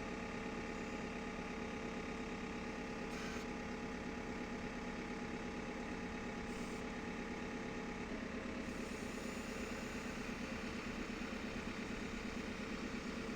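JCB backhoe loader's diesel engine running steadily, with a slight change in its note about eight seconds in.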